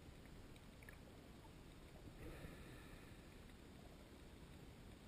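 Near silence: the faint, steady hiss of a camera recording underwater, with a few faint ticks and a soft, slightly louder rustle about two seconds in.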